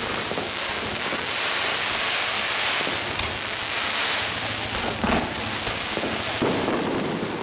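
A barrage of aerial fireworks going off in rapid succession: a dense, continuous crackling and popping of many small bursts, with a louder bang about five seconds in.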